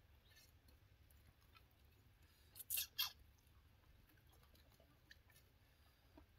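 Near silence with faint sounds of people eating by hand from plates, broken by two short scratchy rasps close together a little before the middle.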